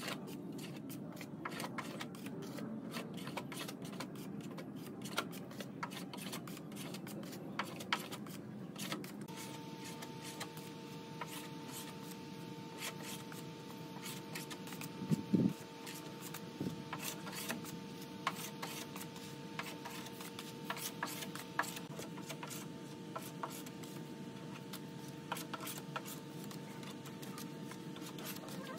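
Plastic spreader scraping body filler across a car door panel: repeated short scrapes and light clicks as the filler is spread and smoothed. A steady hum comes in about a third of the way through, and there is one louder knock around the middle.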